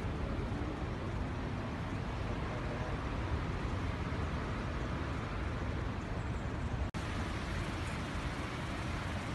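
Steady outdoor rushing noise, heaviest in the low end, with no distinct events apart from a brief cut-out about seven seconds in.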